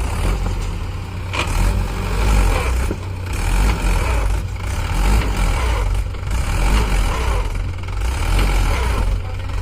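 Tractor diesel engine running hard under heavy load, its sound surging up and down about every second and a half as it strains to pull a stuck tractor free.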